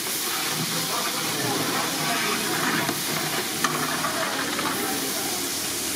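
Large pot boiling hard over a wood fire, stirred with a long metal ladle: a steady hiss and bubbling, with one sharp click about three and a half seconds in.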